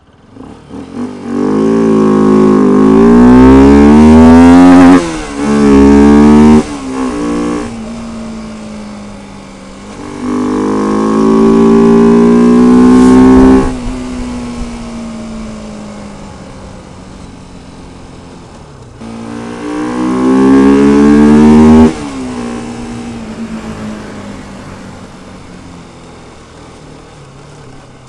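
Bajaj Pulsar 200 RS single-cylinder engine breathing through a K&N 1060 conical air filter, pulling hard three times, the pitch climbing with quick steps at the gear changes. Each pull ends with the throttle snapping shut and the engine winding down on the overrun.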